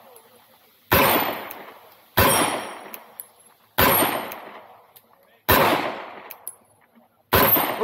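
Five gunshots at a slow, even pace, about one every one and a half seconds, each followed by a long fading echo; a faint high ring follows some of them.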